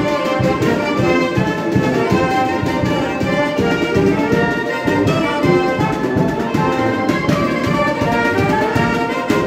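A live brass band of sousaphone, trombones, saxophones and clarinet, with a drum kit, playing dance music. Steady bass notes pulse under the melody.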